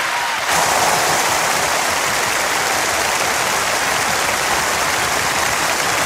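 Steady applause at the end of a live acoustic song, stepping up slightly about half a second in.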